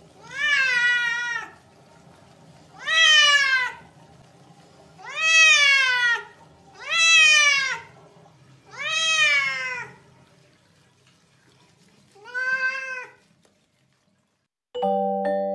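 A cat being bathed meows six times, loudly, in protest. Each meow lasts about a second and rises then falls in pitch, with a second or so between them; the last one is shorter and weaker.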